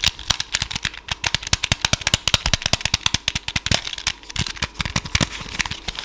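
Small plastic 15-number sliding puzzle with its tiles being slid and shuffled: a quick, irregular clatter of hard plastic clicks, several a second.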